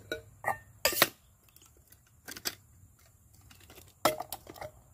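Stainless steel camp cook pot, lid and nesting cup clicking and clinking as they are fitted together and the pot's folding handle is swung shut: a loud click about a second in, a couple of lighter taps in the middle, and a quick run of clicks near the end.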